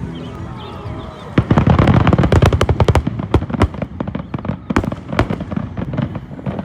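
Fireworks display: a sudden dense volley of rapid crackling bursts starts about a second and a half in. It is followed by scattered single loud bangs.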